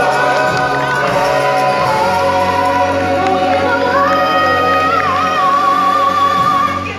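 Live stage song: a woman singing lead into a microphone over backing vocals and music, rising in the second half to a long held high note with vibrato. The song ends abruptly just before the end.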